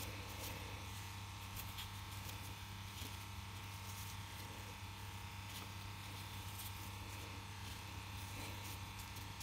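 Faint steady electrical hum with a low hiss.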